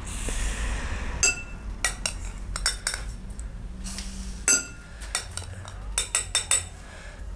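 Metal bar spoon clinking against glass many times while sugar is spooned from a wine glass into a tall glass of mint leaves; several of the taps ring briefly.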